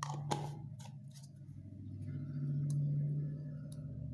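A few light clicks and taps of plastic kitchenware being handled, a small jar with its lid and a plastic spoon in a plastic bowl, over a steady low hum.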